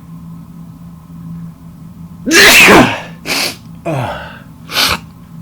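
A man sneezes once, loudly, about two seconds in, with a voiced, falling cry. Three shorter bursts of breath follow over the next two seconds.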